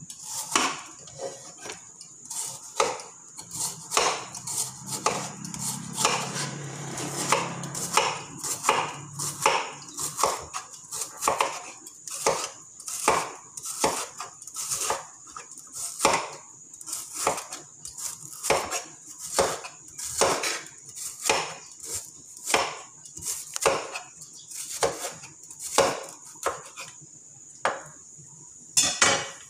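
Repeated chopping knocks on a cutting board, about one a second and now and then quicker, over a steady faint high whine.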